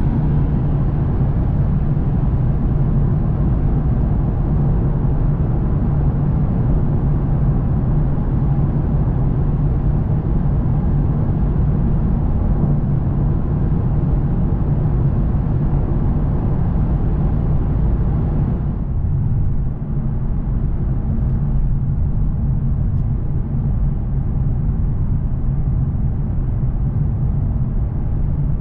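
Lexus RC F Track Edition's 5.0-litre V8 cruising steadily, heard from inside the cabin with tyre and wind noise at motorway speed. About two-thirds of the way in, the higher hiss drops off sharply, leaving mostly the low engine drone.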